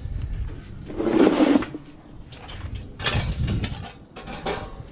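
Haul Master BigFoot steel hand truck being grabbed and tipped back by its handle: the metal frame clatters and rattles in a few separate bursts, the loudest about a second in.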